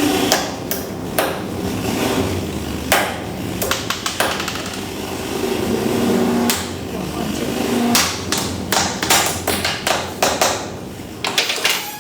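Irregular sharp knocks and strikes, like hammering, coming more closely together near the end, over a steady low hum.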